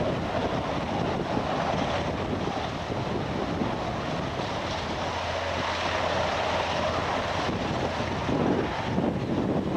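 AS332 Super Puma helicopter running as it moves past close to the ground, a steady rush of rotor and turbine noise mixed with wind buffeting the microphone.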